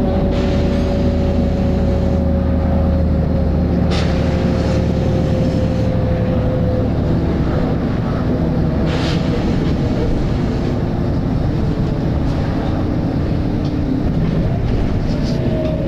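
Volvo B7RLE single-deck bus's diesel engine and driveline running under way, with a whine that slowly falls in pitch over the first several seconds as the bus eases off. Two short hisses of air from the bus's compressed-air system come about four and nine seconds in.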